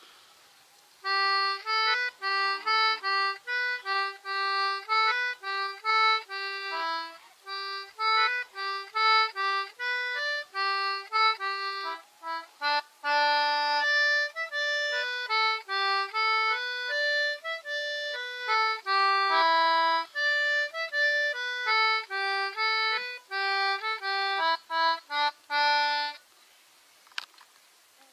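Concertina playing a quick, lively tune of short, rapidly changing notes. It starts about a second in and stops a couple of seconds before the end.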